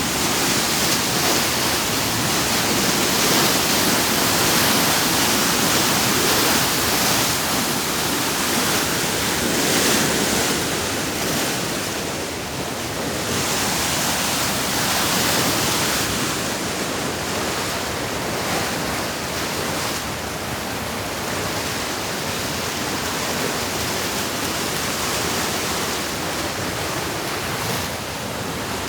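Steady rush of water, a continuous hiss that swells and eases a little every few seconds.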